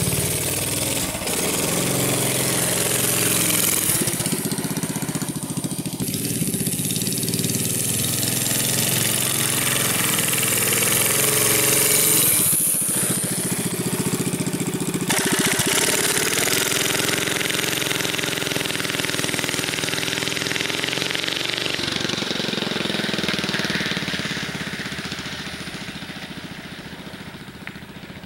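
Straight-piped Briggs & Stratton 3 hp single-cylinder engine on a minibike, running under way, its pitch rising and falling several times with the throttle. It fades over the last few seconds.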